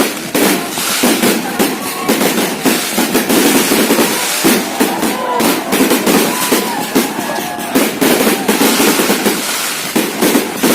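Fireworks going off in rapid succession: a dense, continuous run of bangs and crackling.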